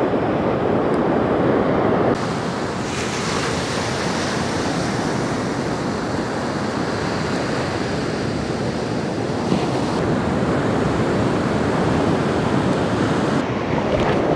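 Ocean surf breaking and washing up a sandy beach: a steady rush of waves, its character shifting abruptly about two seconds in.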